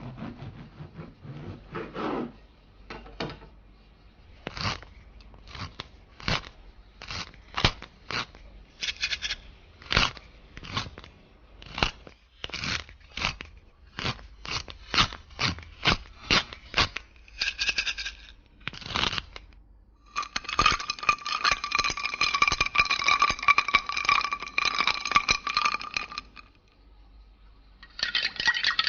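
Kitchen knife chopping vegetables on a cutting board: a long run of short, sharp chops, about one or two a second. About twenty seconds in, a steadier scraping sound with a ringing tone takes over.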